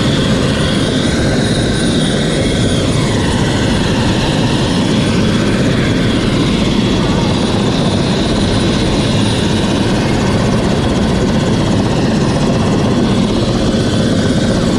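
Landed helicopter running close by, a loud, steady engine and rotor noise that does not change.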